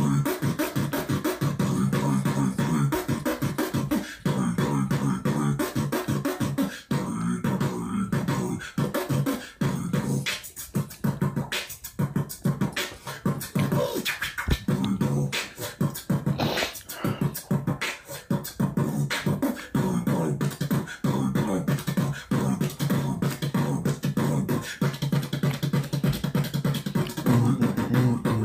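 A man beatboxing: a steady, rapid run of mouth-made clicks and percussive hits over a low hummed tone.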